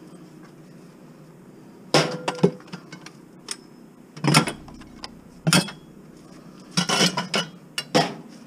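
Scrap metal and glass items being handled and knocked together: a steady low hum at first, then about two seconds in a run of sharp clanks and clinks, with a thicker cluster near the end.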